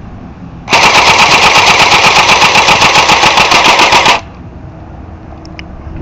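Battery-powered airsoft gun (electric gun) firing one full-auto burst of about three and a half seconds, a rapid even rattle of roughly eight shots a second that starts under a second in and cuts off abruptly.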